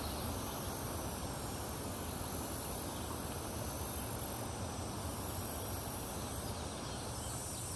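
Steady outdoor background with a continuous high-pitched insect chirring, like crickets, over a soft even hiss.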